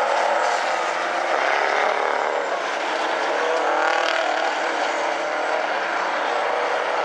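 Racing big-rig truck engines running hard as a pack of trucks races together, the engine notes rising and falling.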